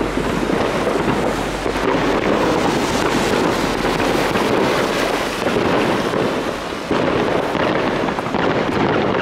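Many fireworks going off at once: a steady, dense run of pops and bangs with no break.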